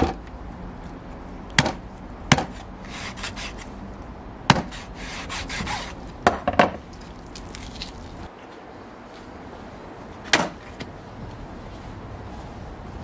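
Kitchen utensils knocking and scraping while cooked lamb is handled: about six sharp knocks at irregular intervals, with scraping between them.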